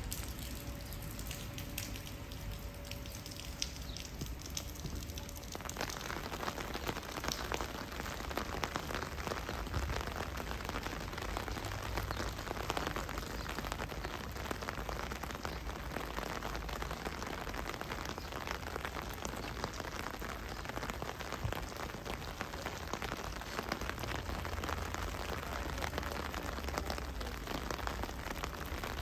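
Steady rain falling and pattering on hard surfaces, dense with small drop ticks; about five seconds in it grows fuller and heavier. A low rumble runs underneath.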